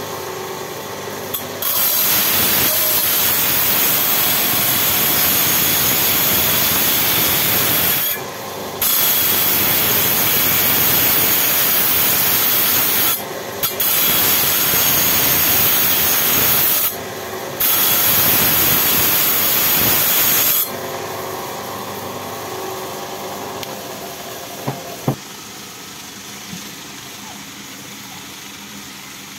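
Bench lapidary grinding wheel on an electric motor spindle, grinding the rough crust off a green agate stone before polishing: a loud, even grinding noise, broken three times briefly as the stone is lifted from the wheel. About two-thirds of the way through the grinding stops and only the motor and wheel run on, more quietly, with one sharp knock near the end.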